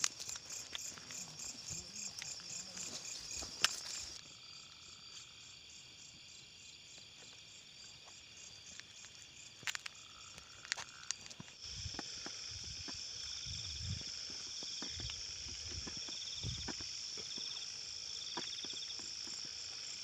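A night chorus of crickets and other insects: steady high-pitched trilling, with a louder high note coming in past the middle and a fast pulsing trill beneath it. Scattered low thumps and rustles of someone moving through the brush come in the second half.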